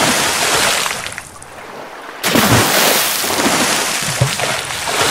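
Splashing-water sound effect, twice: a rush of splashing that fades out about a second in, then a second sudden splash about two seconds in that slowly dies away.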